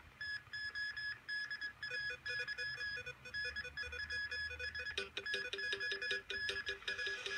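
Electronic beeping like an alarm clock: a high tone pulsing in a quick, even repeating pattern, joined by a lower pulsing tone about two seconds in, with sharp clicks and a change of pattern about five seconds in.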